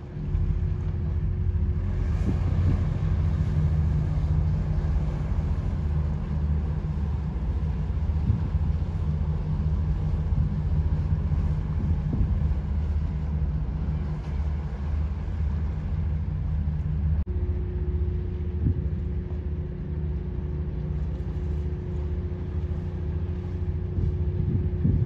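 Boat engine running steadily: a low drone with a faint higher hum above it, the tone shifting slightly about two-thirds of the way through.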